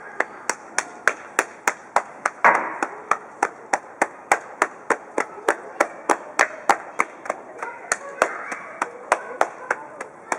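Hand slapping a man's leg in a quick, even rhythm, about three sharp slaps a second: a slapping massage for a tired leg, meant to get the circulation going.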